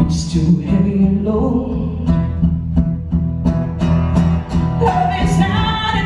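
A live band song: a woman singing lead over a strummed acoustic guitar and an electric guitar, with sustained low notes and a steady beat.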